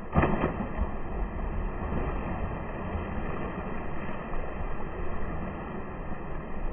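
Slowed-down, deep and muffled sound of a child plunging into a swimming pool: a sudden loud splash about a quarter second in, then a long low rush of churning water.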